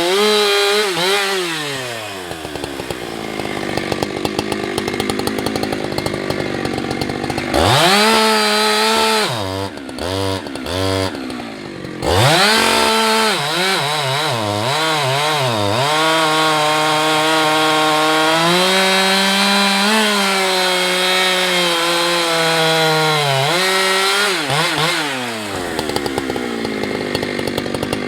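Two-stroke chainsaw cutting through a large tree. The engine pitch sags as the chain bites into the wood and rises again at full throttle, with several quick throttle blips about halfway through. It then runs steadily under load before dropping and picking up again near the end.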